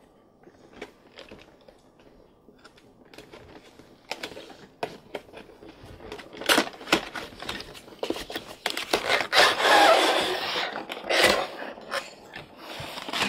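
A cardboard die-cast model-kit box with a clear plastic window and blister tray being handled and opened by hand. Scattered light clicks at first, then dense crackling and sharp clicks from about six seconds in, busiest around ten seconds.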